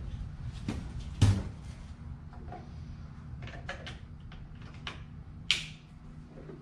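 Handling knocks and clicks of a chainsaw being fueled and its new plastic fuel cap fitted: a loud knock about a second in, a run of light clicks, and a sharp snap near the end.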